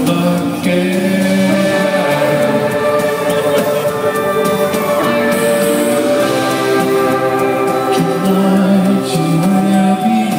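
Live band playing a slow rock song while a male and a female singer sing together at their microphones, heard from the audience.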